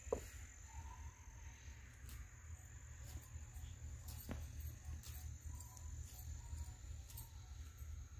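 Faint outdoor ambience: a steady high-pitched insect drone over a low rumble, with a few short faint chirps and two soft clicks, one just after the start and one about four seconds in.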